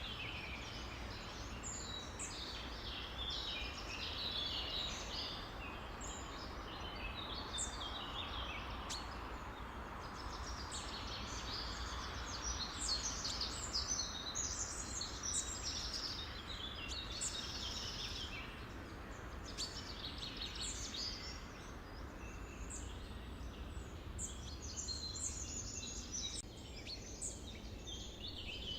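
A dense chorus of many songbirds chirping and trilling over one another, over a steady low background rumble.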